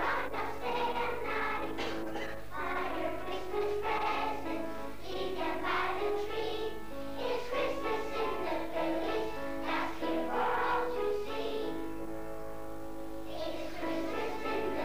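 A group of young children singing together over instrumental accompaniment that holds steady notes. The singing stops for a moment near the end while the accompaniment carries on, then comes back in.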